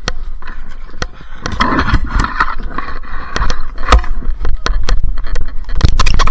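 Sharp clicks and knocks at irregular intervals over a low rumble, with a stretch of scraping in the first half.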